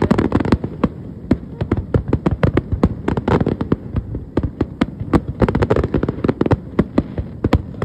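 Fireworks display: aerial shells bursting in a rapid, irregular string of sharp bangs, several a second, overlapping one another.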